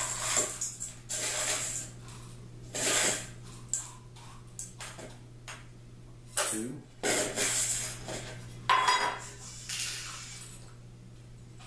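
A metal measuring cup scraping and clinking against a stainless steel mixing bowl as dried butternut squash pieces are scooped up, in several scraping bursts with a few sharp clinks.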